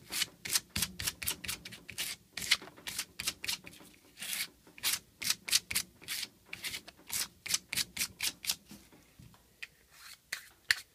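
Green abrasive scouring pad rubbed in quick back-and-forth strokes over the surfaces to be glued, about three scratchy strokes a second, thinning out near the end: scuffing them so the adhesive can bite.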